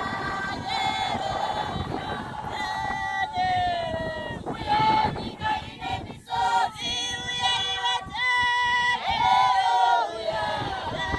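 A group of voices singing unaccompanied in long, held, gliding notes, with women's voices the most prominent.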